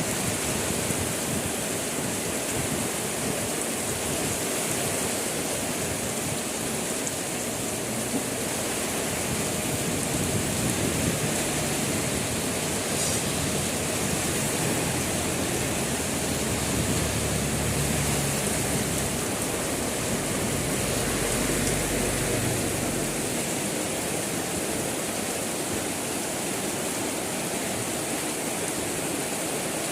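Heavy rain falling steadily, an even hiss of drops. A low rumble builds in the middle and fades again.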